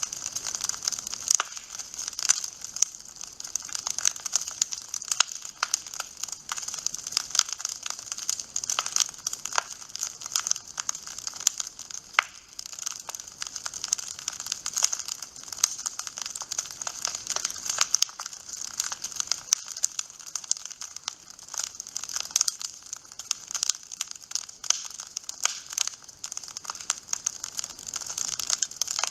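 Wood fire crackling in a fireplace: a continuous, dense run of small irregular pops and snaps.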